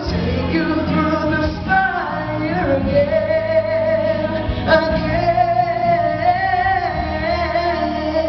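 Gospel ballad sung into a microphone over a backing track, the voice holding one long high note through the second half.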